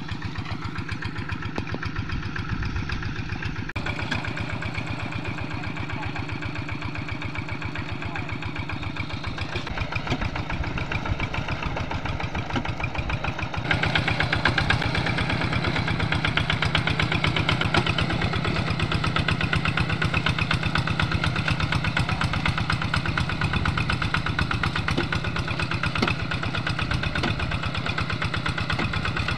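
Single-cylinder diesel engine of a two-wheel hand tractor running steadily as it works a flooded paddy, with a fast, even chugging. The sound jumps louder about halfway through.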